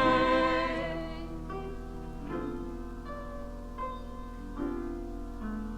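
Gospel song with accompaniment: the singers' held last note fades out within about the first second. The instrumental accompaniment then plays on alone between verses, striking a new chord about every second.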